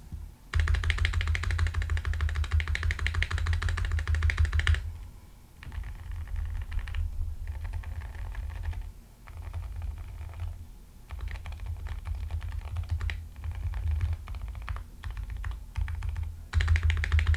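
Zoom75 mechanical keyboard with Gecko Silent Linear switches and GMK keycaps being typed on: a fast, dense run of keystrokes for the first few seconds, then shorter runs of typing broken by brief pauses, and another fast run near the end.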